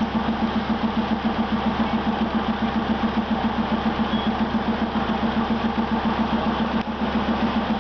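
Diesel train engine idling, a steady low throb pulsing about five times a second.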